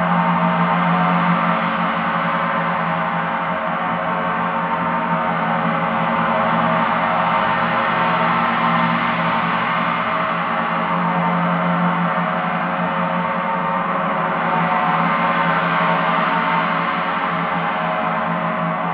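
Paiste planetary gongs ringing in a dense, sustained wash of many overlapping tones that slowly swells and ebbs every few seconds, with no single strike standing out.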